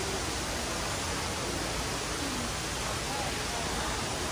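Steady rushing of water, with faint voices underneath.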